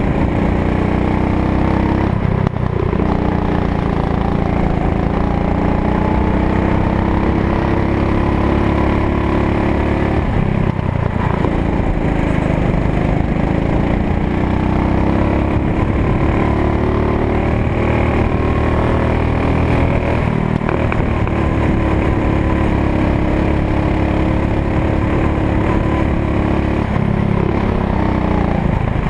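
Kart engine running hard, heard close up from on board the kart. Its pitch drops briefly about four times as the driver lifts off for corners, then climbs again on the straights.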